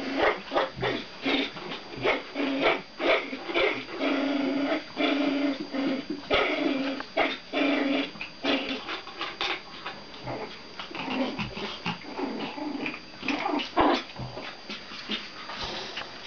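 Pomeranian dogs growling and yapping in play over a rope toy: a quick run of short sharp yaps mixed with held growls of about a second each, thinning out in the second half.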